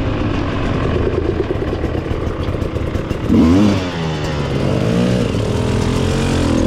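Sherco XC300 two-stroke dirt bike engine revving up and down while riding a trail, with a sharp, louder burst of revs about halfway through.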